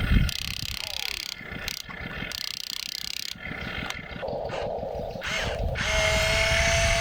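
Small gear motors of an RC construction vehicle running, with a rapid clicking rattle of gears and a steady whine that starts about six seconds in.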